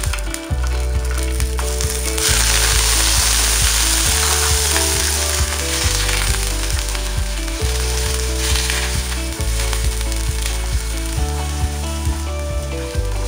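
Raw shrimp sizzling in hot cooking oil in a frying pan as they are laid in; the sizzle gets much louder about two seconds in.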